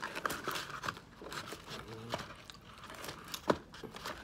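Cardboard fast-food box and paper cups rustling and crinkling as food is taken out of the box, with scattered clicks and one sharp tap about three and a half seconds in.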